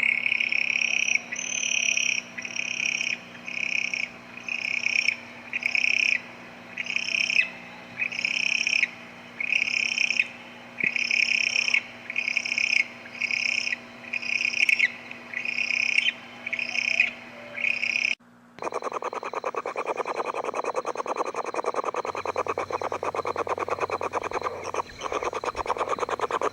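Owl calls: a long series of short high notes about one every 0.8 seconds, then, after about 18 seconds, a fast rattling trill lower in pitch.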